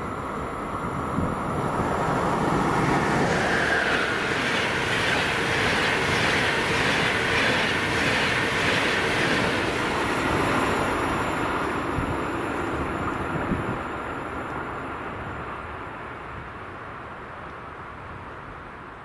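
An SBB double-deck intercity train passes through the station without stopping, its wheels running loudly on the rails. It grows louder over the first few seconds, then fades away, with a few wheel knocks as the last cars go by.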